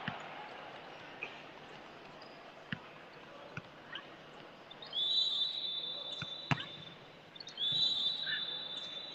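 Referee's whistle blown in two long, steady blasts, the first about five seconds in and the second about two and a half seconds later. Between them, a few scattered sharp knocks of a volleyball bouncing on the court floor.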